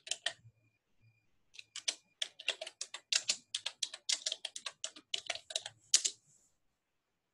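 Typing on a computer keyboard: a few keystrokes, a pause of about a second, then a quick, even run of keystrokes that stops about six seconds in.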